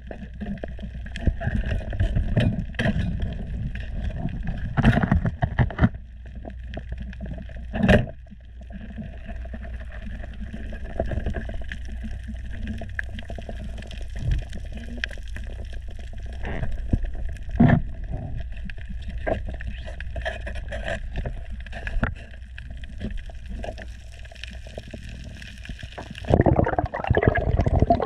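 Underwater sound heard through a diving camera's housing: a steady low rumble with scattered clicks and crackles, and a few louder knocks about 5, 8 and 18 seconds in. Near the end it grows louder and busier.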